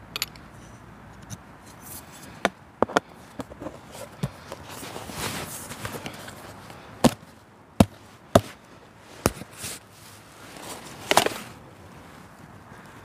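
Objects being handled at a camp: irregular sharp knocks and clicks, about a dozen of them, with short stretches of rustling in between.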